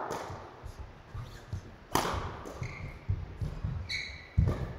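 Badminton rally: sharp cracks of a racket striking the shuttlecock about two seconds in and again near the end, with short squeaks of shoes on the court floor and the thud of footsteps, echoing in a large hall.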